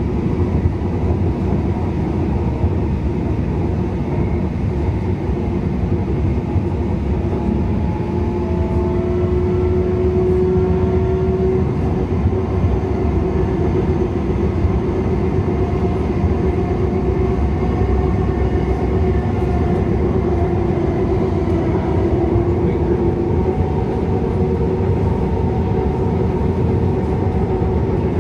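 Siemens S70 light rail train running between stations: a steady rumble of wheels on track, with a faint whine in a few tones that drift slightly in pitch.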